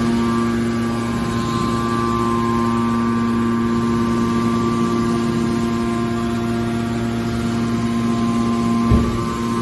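Hydraulic scrap metal baler shear running, its pump and motor giving a steady, unchanging hum with a constant whine. A single short thump comes near the end.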